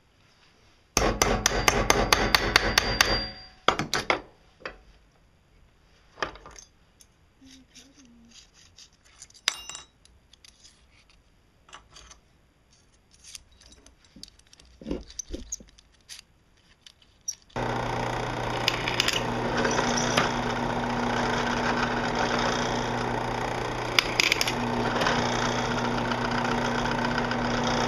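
A quick run of rapid hammer taps on steel for about two seconds, then scattered clinks of small steel hinge parts being handled. About two-thirds of the way through, a drill press starts and runs steadily with a constant motor hum.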